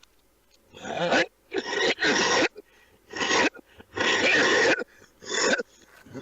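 A man coughing in a prolonged fit, about six harsh coughs in quick succession.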